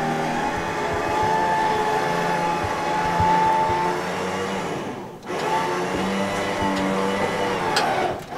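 Electric trailer winch motor whining steadily under load while it pulls a pickup onto a trailer. It stops briefly about five seconds in and again near the end, then winds back up in pitch each time it restarts.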